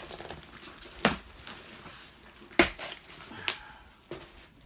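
A cardboard shipping box being torn open by hand: taped flaps ripped up and pulled back with rustling, and three sharp cardboard cracks, the loudest about two and a half seconds in.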